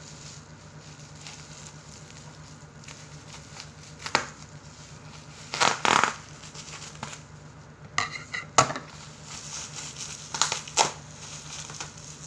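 Bubble-wrap plastic packaging being handled and pulled open, crinkling and crackling in several short bursts, the loudest about six seconds in and near the ninth second. A low steady hum lies underneath.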